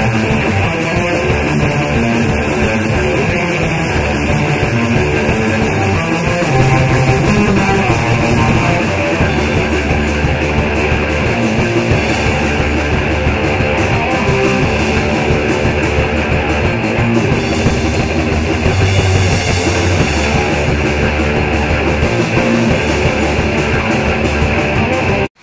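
Background rock music with guitar and drums, which cuts off abruptly near the end.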